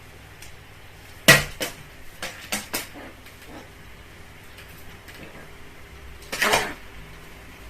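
Sharp clattering of hard objects: about five knocks in a second and a half, the first the loudest, like something striking a dish. A short harsh sound follows about six seconds in.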